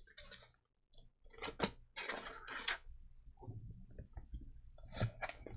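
Paper pages rustling and crinkling as a pad of vellum sheets is handled and leafed through: a few separate rustles about a second and a half in, again around two to three seconds, and near the end.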